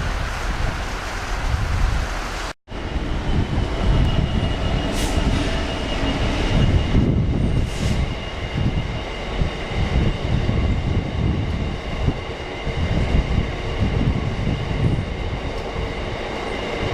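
Freight train passing through a station, a dense rumble of wheels on rail with a steady thin squeal over it. The first two and a half seconds are wind noise on the microphone, and the sound drops out for an instant before the train is heard.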